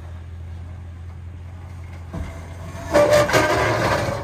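Toyota Tundra's engine running low and steady as the truck crawls up a rock ledge, then from about two seconds in a louder, rough scraping grind as the truck works against the rock.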